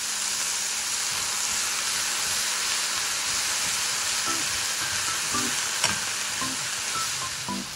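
Shimeji mushrooms, bacon and napa cabbage sizzling steadily as they are stir-fried in a frying pan and tossed with chopsticks, with one sharp click about three-quarters through.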